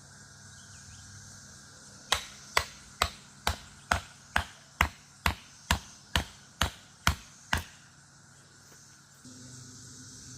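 Wood being chopped: thirteen sharp, evenly spaced strikes, about two a second, starting about two seconds in and stopping a little past the middle.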